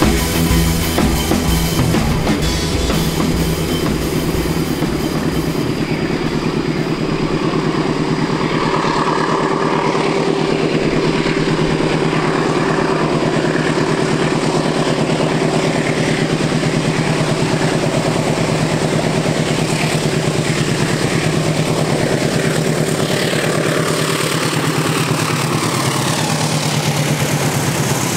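Diesel locomotive engine running steadily as a passenger train approaches round a curve and passes close by, its carriages following. Music with a drum beat fades out over the first few seconds.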